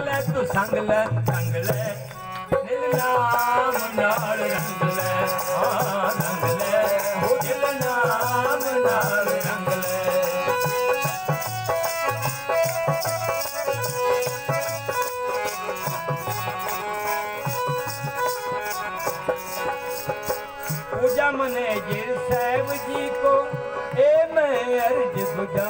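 Devotional shabad music: a melody sung or played over a steady held drone note, with rhythmic percussion keeping time throughout.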